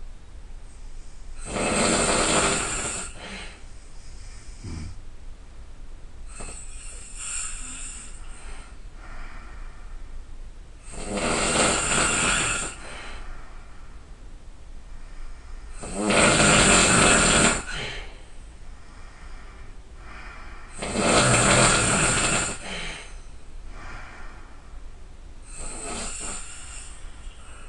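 A person snoring loudly and rhythmically, one rasping snore about every five seconds, some louder than others.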